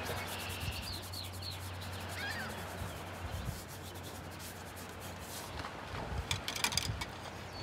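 Watercolour brush rubbing and scrubbing across paper in many short strokes, with a few faint bird chirps near the start.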